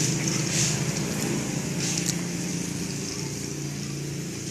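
A motor vehicle engine running steadily, slowly fading toward the end.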